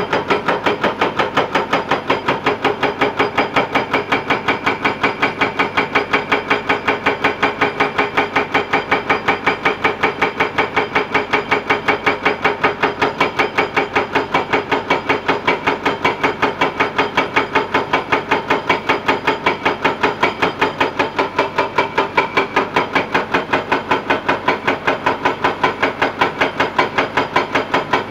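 Excavator-mounted hydraulic breaker (rock hammer) pounding rock, a fast, even hammering of several blows a second that keeps up without a pause.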